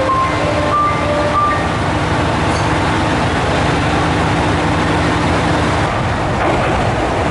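Diesel railcar engines idling at a station platform, a steady hum. Over it, a short stepped electronic chime melody plays in the first second and a half.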